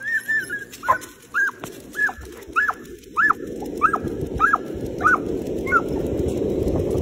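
Excited dog yipping as it sets off on a run on the leash: about ten short, high yips in a steady rhythm, roughly one every half second, each rising and dropping in pitch, stopping near the end. Under them a low rushing noise builds from about halfway through.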